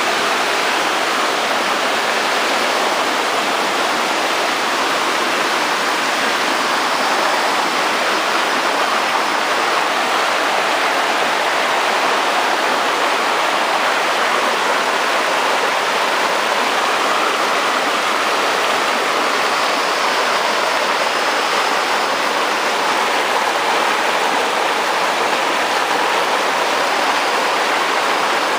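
Rushing water from a stream or waterfall, a steady full rush that stays even throughout.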